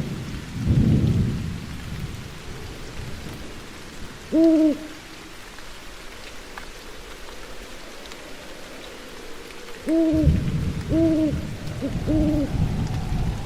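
An owl hooting in short single notes, once about four seconds in and three times in quick succession near the end, over steady rain with low rolling thunder.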